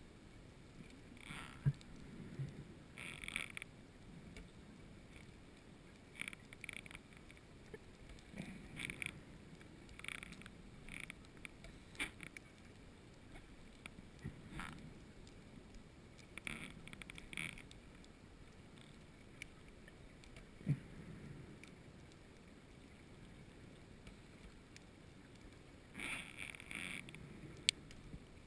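Scuba diver's regulator exhaling bubbles underwater, heard through the camera housing: short crackling bubble bursts in groups about every six seconds, over a faint steady hiss.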